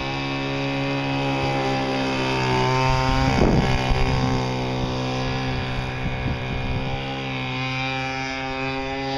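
The Echo 21 cc two-stroke engine of an RC speedboat running at speed with a steady buzzing note. It gets louder about three seconds in, with a brief rush of noise, as the boat passes close, then stays steady as it runs on.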